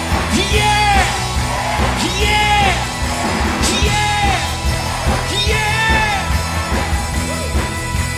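Live rock band playing, with electric guitars and drums, while a male singer belts four long sung calls, each falling in pitch at its end.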